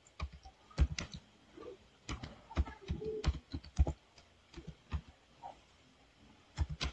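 Typing on a computer keyboard: irregular keystrokes, a few a second, with a short pause near the end followed by a last few quick keystrokes.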